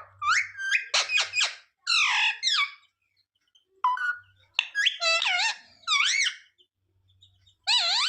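Ringneck parrot calling: bursts of high, warbling squeaky notes whose pitch swoops up and down, with short pauses about three seconds in and again near the end.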